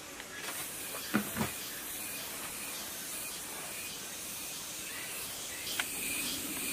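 A few light knocks and clicks of parts being fitted by hand to a single-cylinder diesel engine, two close together about a second in and one near the end, over a steady hiss.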